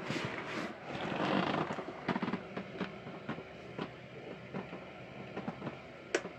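Camera handling noise as a camera is carried down into a cabin: rustling in the first couple of seconds, then scattered knocks and clatters. One sharp click comes near the end.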